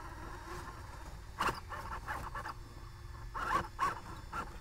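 Radio-controlled rock crawler's sensored brushless motor and steering servos whirring in short bursts, about a second and a half in and again around three and a half seconds, as the truck strains against the rocks with its front tire trapped under a rock.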